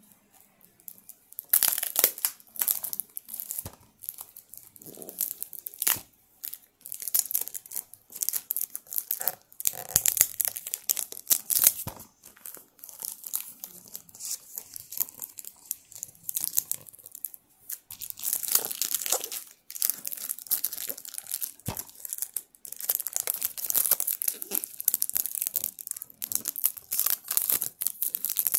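Plastic shrink wrap being torn and crinkled off a DVD case, in irregular crackling bursts.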